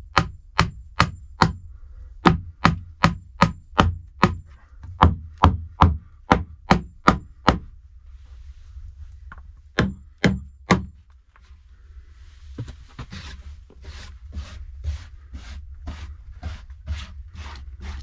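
Hammer blows on a wooden shelf board as it is nailed to a plank wall: sharp strikes about two or three a second with short breaks, stopping at about seven and a half seconds, then three more blows about ten seconds in. From about twelve seconds in, a softer run of rhythmic scraping strokes on wood.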